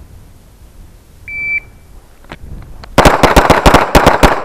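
A shot timer's short electronic beep, followed about a second and a half later by a fast string of about ten 9mm pistol shots in just over a second. Two shooters are drawing and firing five rounds each at the timer's start signal.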